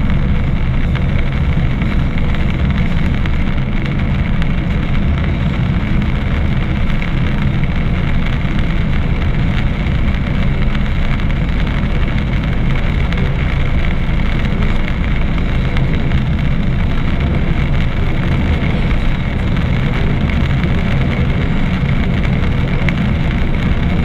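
Car driving on a wet road, heard from inside the cabin: steady engine and tyre noise.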